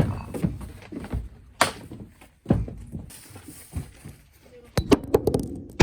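A series of irregular knocks and thumps, with a quick run of sharp clicks and knocks near the end.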